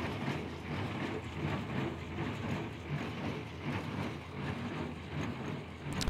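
John Deere 1025R subcompact tractor's three-cylinder diesel engine running under load while pulling a John Deere 327 square baler, the baler's machinery running with it. A steady mechanical noise with a faint regular pulse.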